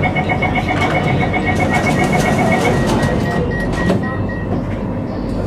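MRT train's door-closing warning: a rapid run of short beeps for about two and a half seconds, then the sliding doors shutting with a few knocks about three to four seconds in, over the steady hum of the standing train.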